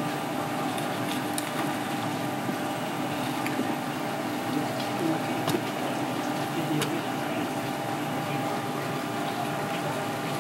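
Steady mechanical hum and hiss, like a pump or running water, with a few faint clicks.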